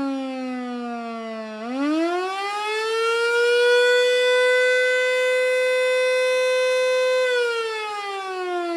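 Federal Signal Model 2 electromechanical siren sounding a short attack signal. Its single tone winds down, rises quickly about a second and a half in to a steady high pitch, holds for about four seconds, then winds down again near the end.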